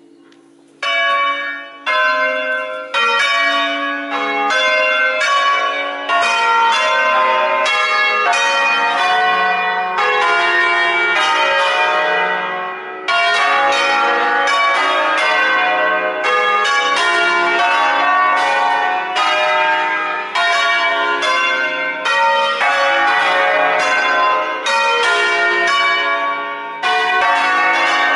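Peal of eight bronze church bells cast by Crespi in 1951, tuned in D-flat, swung full circle on their wheels and striking one after another in a rapid ringing pattern. The strikes begin about a second in and run on with short breaks about halfway through and near the end.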